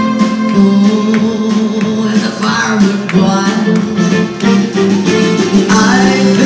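A live band playing in a concert hall, with strummed guitars over a sustained bass line and a steady beat.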